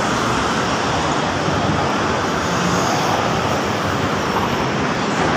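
Steady road traffic noise from passing vehicles on a busy city street.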